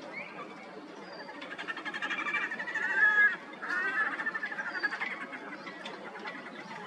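Red-necked grebes calling during their courtship display: a rapid chattering trill of pulsed notes that builds to its loudest about three seconds in, breaks off briefly, then runs on until about five seconds in, over a steady background hiss.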